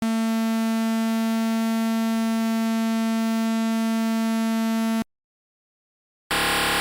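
Electronic beep tones: a low buzzy beep holds at one steady pitch for about five seconds and cuts off abruptly. After a second or so of silence, a harsher, noisier electronic buzz starts near the end.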